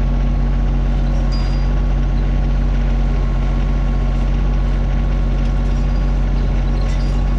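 Mini excavator's diesel engine running steadily at constant speed, with a few faint light clicks over it.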